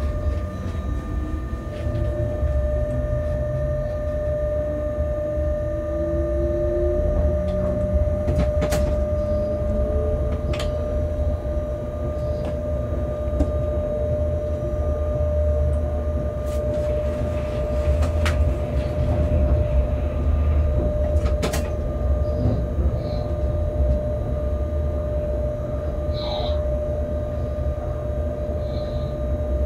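Locomotive running along the track, heard from inside the cab: a steady low rumble with a constant whine. Tones rise in pitch over the first several seconds as it picks up speed, and sharp clicks come at intervals as the wheels pass rail joints and points.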